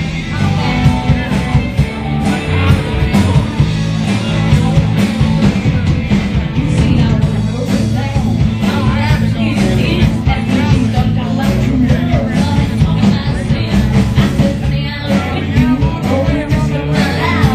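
Live rock-and-roll band playing loudly and continuously.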